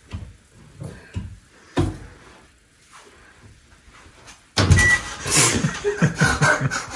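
Soft knocks of clothes and hands against a front-loading washing machine's drum and door, then a sudden thump about four and a half seconds in, followed by laughter and breathy giggling.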